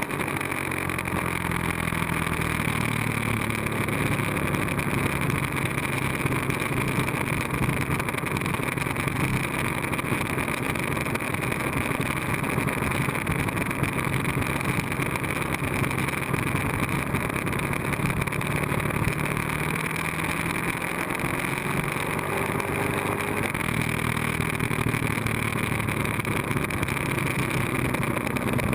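Sport motorcycle engine running at road speed under a steady rush of wind and road noise, its pitch shifting a little as the rider rolls the throttle on and off through the bends.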